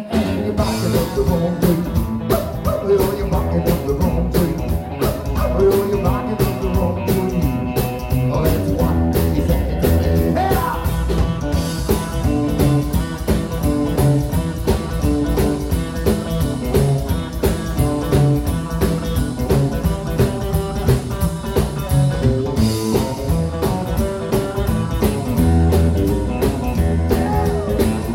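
Live rock and roll band playing with a steady beat: electric guitar, upright double bass and drum kit.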